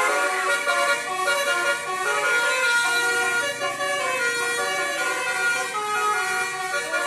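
Bus 'telolet' musical air horn playing a tune: several horn tones sounding together and stepping from note to note without pause.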